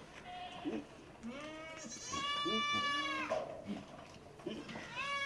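Goats bleating: one long, loud, wavering bleat about a second in, lasting about two seconds, and another starting near the end, with shorter, lower calls in between.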